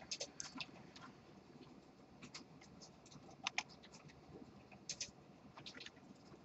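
Faint, sparse computer keyboard keystrokes: single clicks and short clusters of two or three, spaced a second or so apart.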